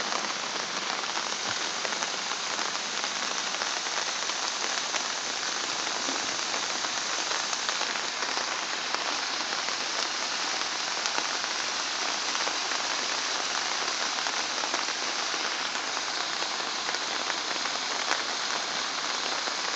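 Steady hiss of heavy rain and muddy water running down a fresh landslide slope, with a few faint drop ticks.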